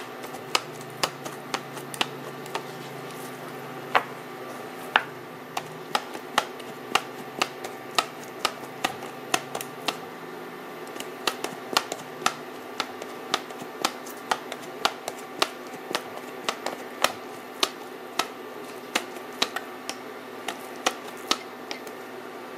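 Plunger-style blade meat tenderizer pressed repeatedly into raw steak on a plastic cutting board, giving a sharp click with each press, about two a second at an uneven pace, over a faint steady hum.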